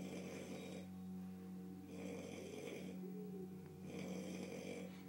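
A man snoring heavily in deep sleep, one snoring breath about every two seconds.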